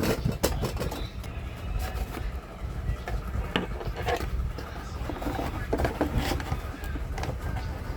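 Scattered clicks and knocks of hands handling treadmill wiring and parts, over a steady low rumble.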